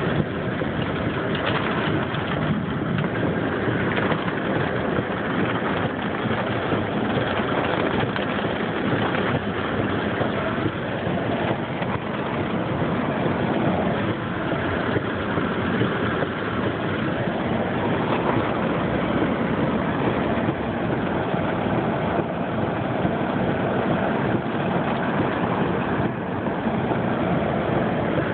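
Steady rushing noise of a car driving on a rain-soaked road, heard from inside the cabin: tyres on wet pavement and falling rain.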